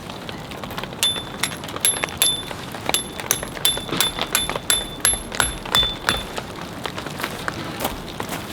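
Raindrops pattering irregularly on a camping shelter, many separate taps, with some drops landing on something that gives a short high ring, repeated at the same pitch for several seconds from about a second in.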